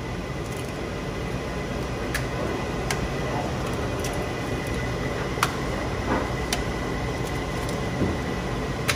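Steady rushing background noise with a faint thin tone in it, broken by half a dozen sharp clicks scattered through.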